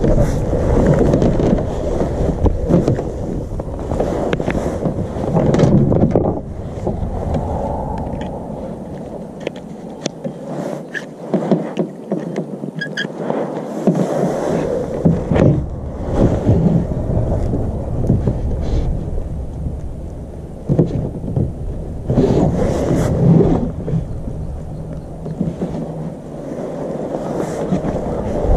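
Wind buffeting the microphone in gusts, a heavy low rumble. In a lull about ten seconds in, small clicks and knocks come through as gloved hands handle the fish-finder transducer cable and plug at the kayak's plastic hatch.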